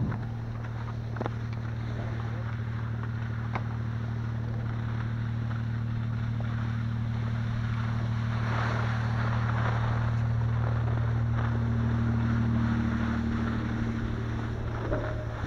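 Skis sliding and scraping over hard, crunchy groomed snow, with a steady low drone that swells and then eases off near the end. There are a couple of sharp clicks and some wind on the microphone.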